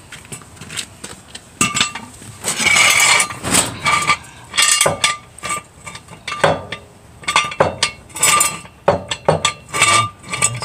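Steel car stand (axle stand) being set and adjusted under the car's jacking point: irregular metal clinks and clanks, many with the same short ringing note, and a brief scrape about three seconds in.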